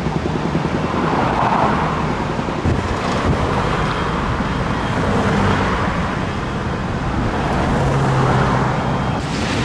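Road traffic: cars passing by, a steady wash of tyre and engine noise that swells several times as vehicles go past.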